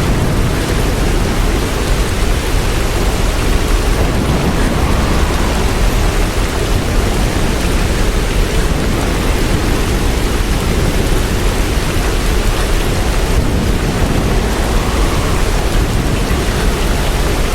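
Steady, unbroken noise of hurricane wind and heavy rain, heaviest in the low rumble, with no distinct events.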